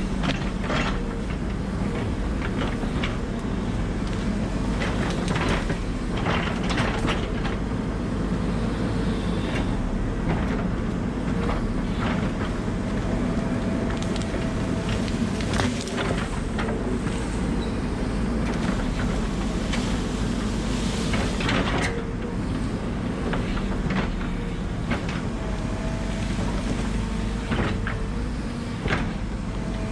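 Excavator's diesel engine running steadily under work, with scattered sharp cracks and knocks.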